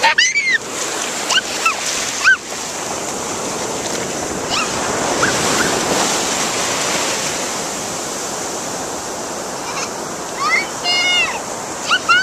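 Small waves washing up on a sandy shore, a steady rushing surf. Now and then a young child gives short, high-pitched squeals, several near the start and a cluster near the end.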